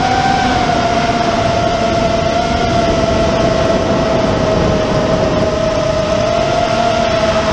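Four LD Power 2305 2750KV brushless motors of a 5-inch FPV quadcopter spinning DalProp Cyclone 5050 props, heard from the onboard GoPro. They give a steady whine at cruising throttle, easing slightly lower in pitch after the start, over rushing prop wash and wind noise.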